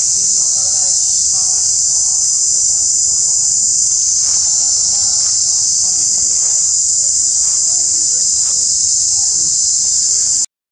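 Loud, steady, unbroken drone of insects, with faint short squeaky calls from the macaques underneath. It all breaks off for a moment near the end.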